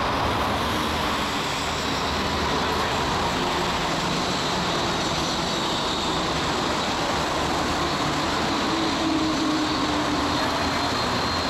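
Rubber-tyred Santiago Metro Line 2 train running: a steady rolling rush with faint whining tones from the traction motors.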